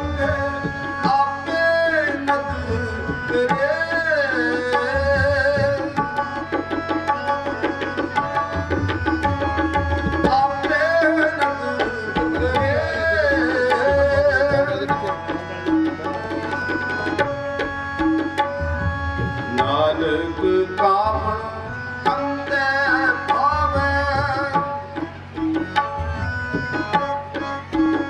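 Sikh kirtan: a man singing to harmonium accompaniment, with tabla played throughout, its deep bass drum strokes recurring under the melody.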